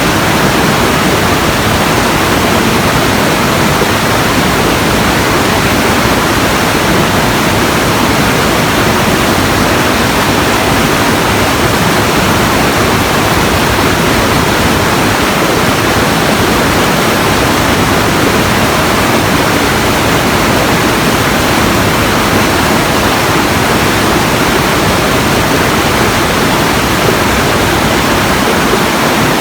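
Steady, loud rushing noise spread evenly from low to high pitch, with no breaks, beats or tones.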